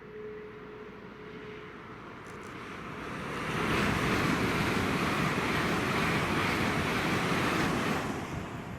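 A train passing through at speed. A rushing noise swells from about three seconds in, stays loud for about four seconds, then falls away near the end.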